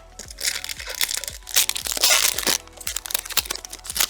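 Foil wrapper of a Pokémon card booster pack being crinkled and torn open, a run of crackling bursts that is loudest around the middle.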